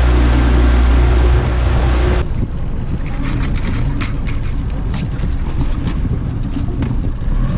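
A boat motor runs steadily under wind on the microphone, then stops abruptly about two seconds in. After that come wind and scattered small clicks and knocks from rope and gear being handled on the aluminium boat.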